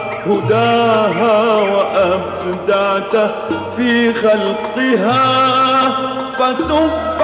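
Arabic religious nasheed: a male voice singing a long, ornamented melismatic line over low sustained accompaniment notes.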